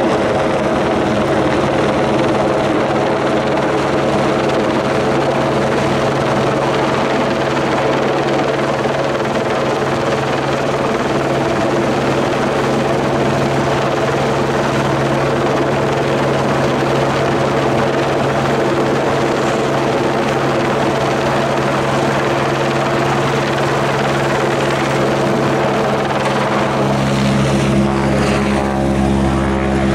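Helicopter working overhead with a mast slung on a long line: a loud, steady rotor and turbine sound with several held tones. Near the end the tones shift and the pitch bends down.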